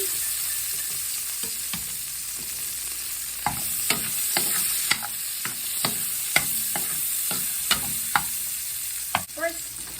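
Food sautéing in oil in a wok: a steady sizzle, with a spatula clacking and scraping against the pan about twice a second from a few seconds in.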